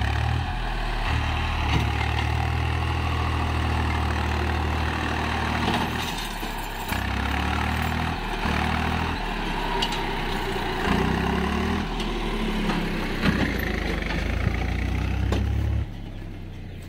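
Swaraj 735 FE tractor's three-cylinder diesel engine working under load as it pulls a loaded straw trailer out of a rough dip. Its pitch rises and falls several times as the throttle is worked, and the sound drops away about a second before the end.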